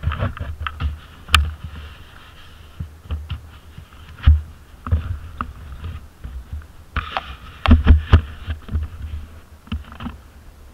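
Irregular low thumps and sharp knocks with rattling clicks, typical of an ATV and its mounted camera jolting over rough ground, with a hiss that swells near the start and again about two-thirds of the way through.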